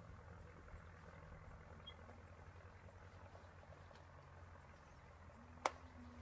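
Near silence: a faint, steady low rumble of outdoor background, with one sharp click about five and a half seconds in.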